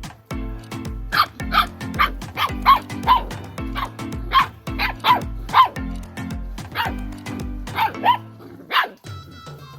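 Dachshund puppies yipping and barking in short, high-pitched calls about every half second, over background music with a steady beat. Near the end the music switches to a different, lighter track.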